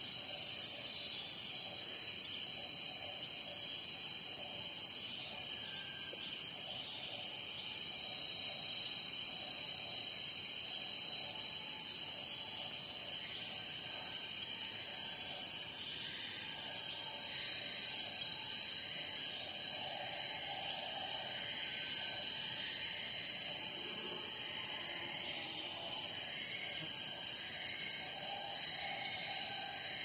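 Tropical rainforest morning ambience: a steady, high-pitched drone of insects such as cicadas, with birds calling over it and one call note repeating about once a second in the second half.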